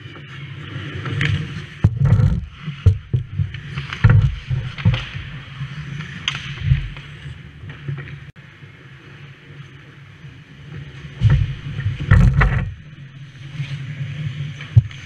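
On-ice ice hockey sounds close to the goal: skate blades and goalie pads scraping across the ice in bursts, with several sharp clacks of sticks and puck, the loudest about two, four, eleven and twelve seconds in. A steady low hum runs underneath.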